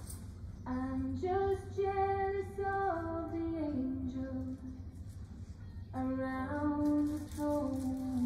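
A voice singing a slow melody in two phrases, each stepping down in pitch, over a steady low hum.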